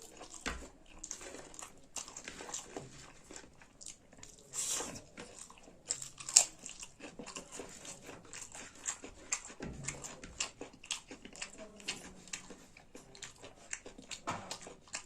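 Close-up chewing and mouth sounds of a person eating rice with saag: a rapid, irregular run of wet smacks and small clicks, with one sharper click about six seconds in.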